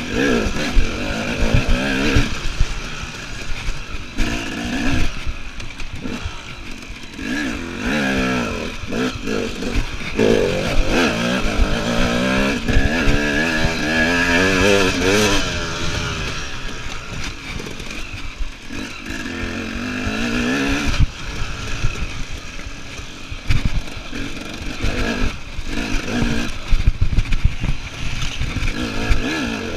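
KTM EXC enduro motorcycle engine being ridden hard off-road, revving up and dropping back over and over, with frequent knocks and rattles from the bike on rough ground.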